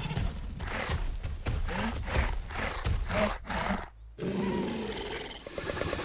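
Dinosaur vocal sound effect: a run of short, harsh growling calls, about two a second, then after a brief break about four seconds in, a longer rattling growl.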